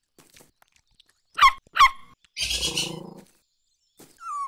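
Cartoon animal sound effects: two short squeaky calls in quick succession, each dropping in pitch, then a burst of noise lasting about a second, and a short falling whine near the end.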